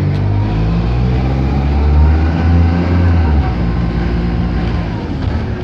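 Dennis Dart single-deck bus's diesel engine pulling hard under acceleration, heard from inside the passenger saloon. The deep engine note climbs slowly, then its lowest drone drops away about three and a half seconds in while the engine keeps running.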